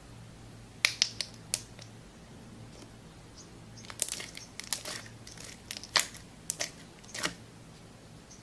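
Slime being squeezed and pressed, giving sharp crackling pops in three clusters: about a second in, around four to five seconds, and again around six to seven seconds.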